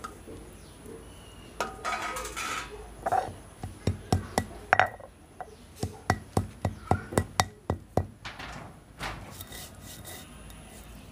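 Whole spices crushed on a flat stone slab with a hand-held grinding stone (shil-nora): a stretch of rough scraping and rubbing, then a run of sharp stone-on-stone knocks, about three a second, for about four seconds, as the stone is pounded on the seeds.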